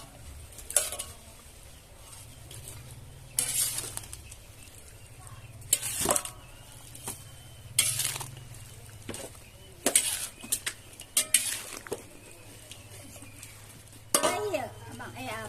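A utensil stirring and scraping in a cooking pan, in separate strokes every second or two, over a steady low hum.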